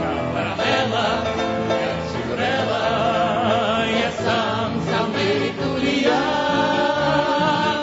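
A song sung by several voices over an instrumental backing, the held sung notes wavering with vibrato.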